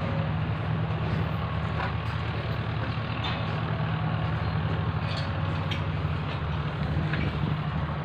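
A steady low rumble of an engine running.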